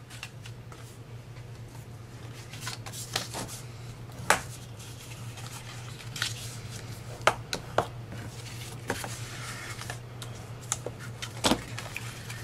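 Cardstock being handled and laid down on a craft mat: scattered paper rustles and light taps, a few sharper clicks among them, over a low steady hum.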